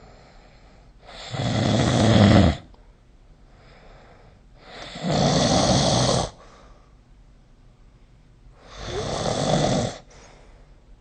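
A person snoring: three snores about four seconds apart, each lasting about a second and a half, with faint breathing between.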